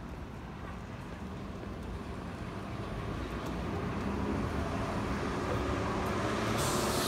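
City street traffic: a motor vehicle's engine rumble grows steadily louder as it approaches, with a hiss coming in near the end.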